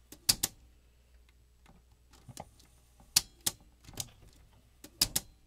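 Sharp mechanical clicks, several in close pairs, from the piano-key buttons and transport mechanism of a General Shop CX-457F boombox's auto-reverse cassette deck being worked by hand, over a low steady hum.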